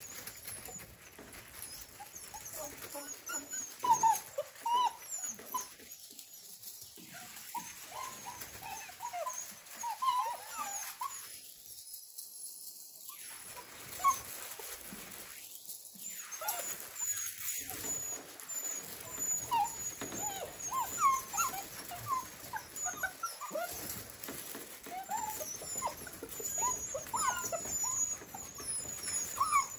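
A litter of seven-week-old Australian Labradoodle puppies whining and whimpering, many short high squeaks overlapping one another.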